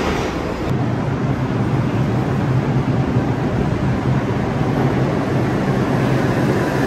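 New York City subway train pulling into the station: a loud, steady rumble with a low motor hum that sets in about a second in.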